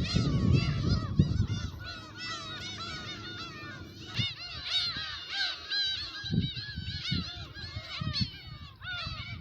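A large flock of black-tailed gulls calling over one another, many short arching cries overlapping without pause. Wind buffets the microphone with low rumbling gusts, heaviest in the first two seconds.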